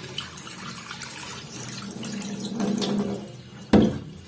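Cloudy rinse water from washed rice poured out of a metal bowl and splashing into a stainless-steel sink. A single sharp metallic knock near the end as the bowl is set down in the steel sink.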